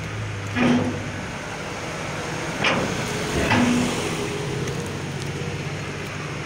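A heavy diesel vehicle idling steadily, with three sharp knocks: one about half a second in, then two close together around three seconds in.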